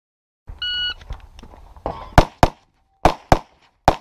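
Electronic shot timer beeps once to start the stage, then an Open-division competition pistol fires five shots, mostly in quick pairs about a quarter second apart.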